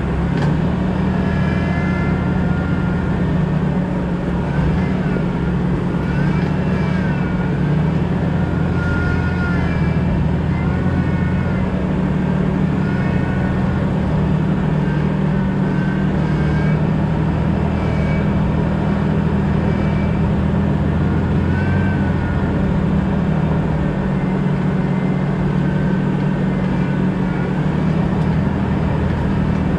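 2000 Jeep Cherokee XJ driving at a steady pace: a constant low engine and drivetrain drone with road noise, and some faint, wavering high tones above it.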